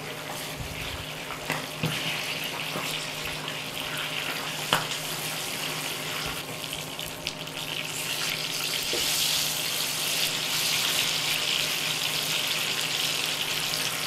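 Whole peppers frying in hot oil in a pan: a steady sizzle with scattered pops and crackles as water left on the peppers spits in the oil. The sizzle grows louder in the second half, over a faint low hum.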